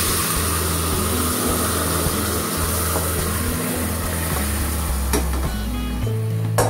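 Vegetables and gravy poured into hot mustard oil tempered with panch phoron, sizzling and hissing loudly, then slowly dying down as the liquid cools the oil. There are a couple of light clinks of the pan against the pot near the end.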